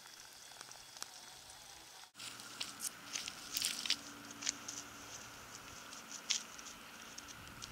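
Faint, irregular crunching and crackling of footsteps on dry, stony scrub, starting about two seconds in, over a faint steady low hum.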